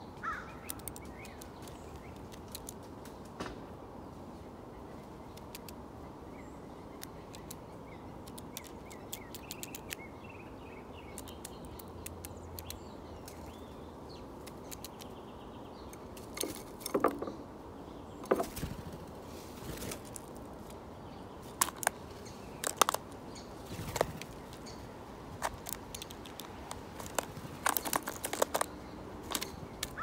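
Sparrows chirping in short, sharp notes, sparse at first and then more often and louder in the second half, over a steady background hiss.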